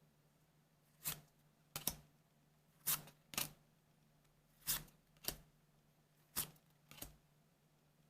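Trading cards being handled and laid down: short, crisp card snaps and taps, coming in pairs about half a second apart, four pairs in all, with a faint steady hum underneath.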